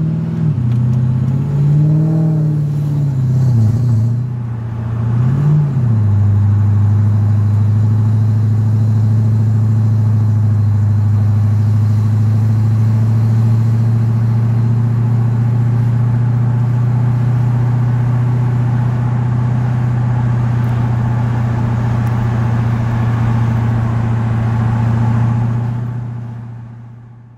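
Supercharged M113K V8 of a Mercedes CLK55 AMG heard from inside the cabin while driving: the engine note climbs and drops a few times over the first six seconds as the car pulls away through the gears, then holds a steady drone at constant cruising speed, fading out near the end.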